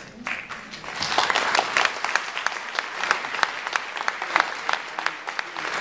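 Audience clapping: applause begins just after the start, swells within the first second, and continues steadily.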